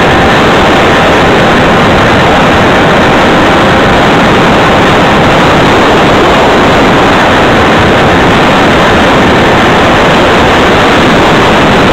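Loud, steady wind noise buffeting the microphone of a camera moving along a road, with road traffic mixed in.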